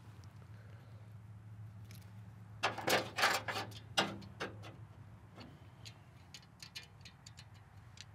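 Metal hand tools clicking and clinking on the valvetrain as a box-end wrench and screwdriver work a rocker arm's adjusting screw and locknut during a valve clearance adjustment. A burst of loud clicks comes about three to four seconds in, followed by scattered lighter ticks.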